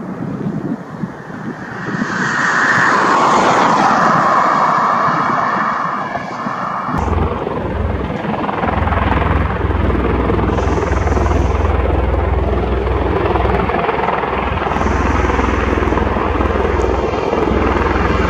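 Bell Boeing V-22 Osprey tiltrotor aircraft, its rotors and Rolls-Royce T406 turboshaft engines running loud and steady. The sound swells about two seconds in, then changes abruptly about seven seconds in to a much deeper low drone that continues.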